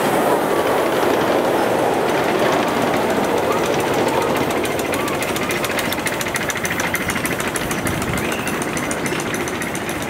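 Miniature ride-on steam train passing close by: its cars' wheels clatter and rumble on the rails, then the locomotive's rapid, even chuffing comes through as it goes by, slowly fading toward the end.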